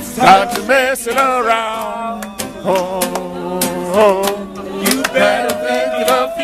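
A man singing loudly to a strummed acoustic guitar, with other voices joining in.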